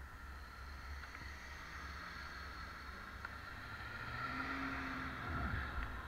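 Street traffic: a car's engine and tyres grow louder and pass, over a low rumble of wind on the microphone of the moving bike.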